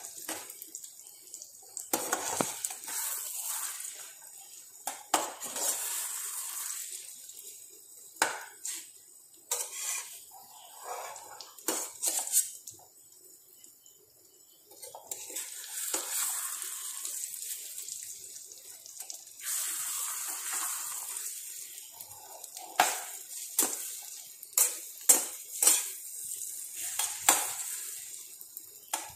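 Okra and beaten egg sizzling in oil in a frying pan, with a metal spatula scraping and knocking against the pan as the mixture is stirred and turned. The knocks come thick and fast near the end.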